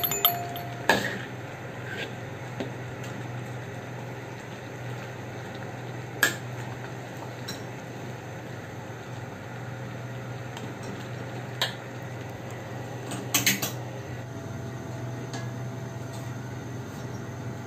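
Metal spatula scraping and clanking against a carbon-steel wok as shrimp are stir-fried, a handful of scattered strikes over a steady frying hiss and a low hum.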